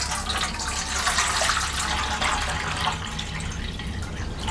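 Water poured in a steady stream from a small metal pot into a steel bowl, splashing against the metal, easing off a little near the end.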